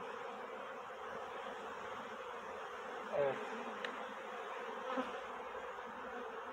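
Honeybees buzzing steadily around an opened hive. A brief voice-like sound about three seconds in and a small click just before four seconds.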